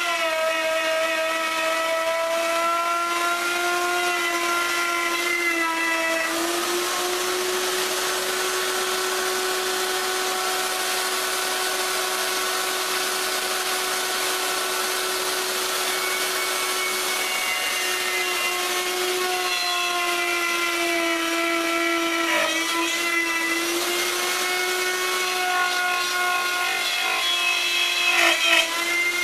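Router running steadily and cutting wood, its motor tone sagging slightly in pitch a few times under load, with a brief rougher, louder stretch near the end.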